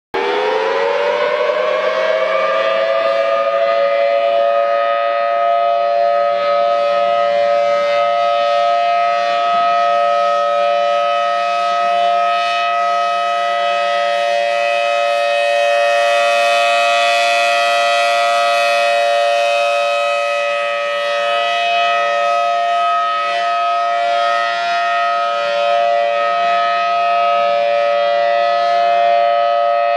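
Thunderbolt 1000T outdoor warning siren winding up over the first two to three seconds, then holding a steady two-tone wail at full pitch.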